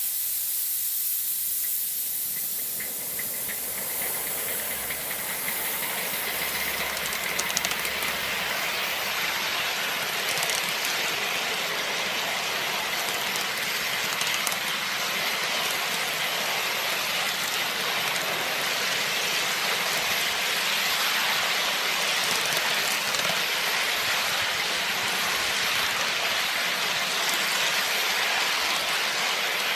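Live steam miniature locomotive with Walschaert valve gear running along its track almost in mid-gear, a sign its valves are well set: a steady hiss of steam that builds over the first few seconds and then holds.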